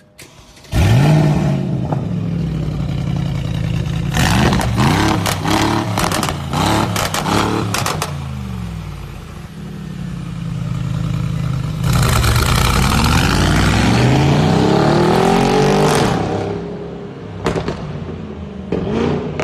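Mercedes-AMG G63's twin-turbo V8 through a straight-through valvetronic exhaust with catless downpipes: it fires up about a second in with a flare of revs, then is blipped several times with sharp crackles and pops, and later accelerates away with a long rising pull. A couple of short pops follow near the end.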